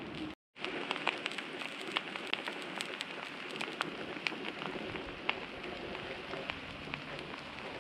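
Omelet sizzling on a hot flat-top griddle: a steady hiss with frequent small crackling pops. The sound cuts out completely for a moment just under half a second in.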